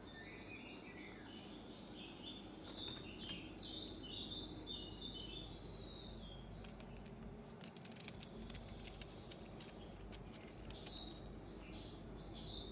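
Small songbirds chirping and twittering busily, many short high calls overlapping, with scattered faint clicks and a low steady background rumble.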